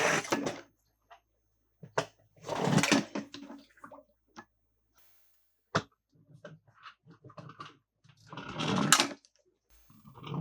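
Intermittent handling noises of toys and packaging: three short rustling bursts, with sharp clicks and small taps between them.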